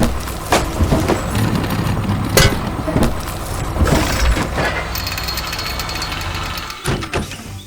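A heavy vehicle engine running steadily, with several sharp knocks and clanks over it, falling away just before the end.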